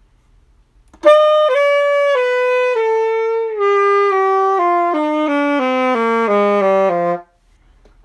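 Saxophone playing a descending scale of about fifteen steady notes, stepping down two octaves from high C to low C, with the notes growing shorter toward the bottom. The horn is being checked for a fault in its low register, where the player calls the low C atrocious.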